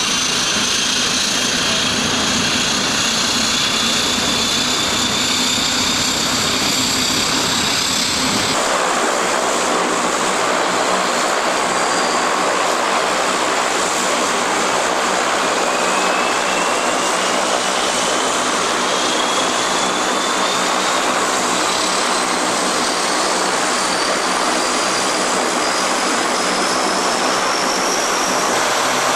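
Lockheed L-188 Electra's Allison 501 turboprop engines running on the ground during start-up: a dense propeller and turbine sound with high whines rising slowly in pitch as the engines spool up. About eight seconds in the sound changes abruptly, the low rumble falling away and a fresh whine climbing steadily through the rest.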